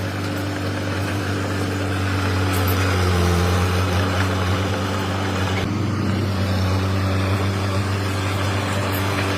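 Komatsu D21P mini bulldozer's diesel engine running steadily, a constant low engine note with mechanical noise over it.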